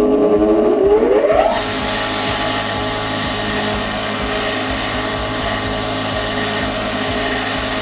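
A 400 W three-phase induction motor, wired to run on single-phase 220 V through a capacitor, spins up with a rising whine over about a second and a half, then runs steadily with an even hum and whirr.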